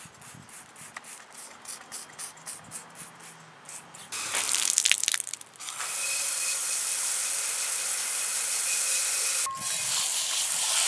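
Garden hose spraying water to rinse degreaser off an intake manifold. Faint regular ticking at first, a few sputtering bursts about four seconds in, then a steady hiss of spray with a short break near the end.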